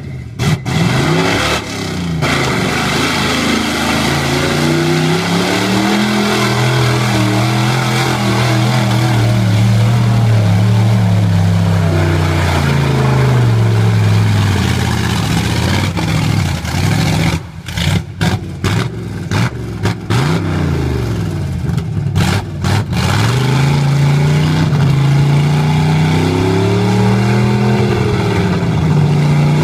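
Cammed 383 small-block Chevy V8 in a mud truck revving hard, its pitch rising and falling as it spins 54-inch tires through deep mud. In the middle stretch the sound cuts in and out before the engine climbs again near the end.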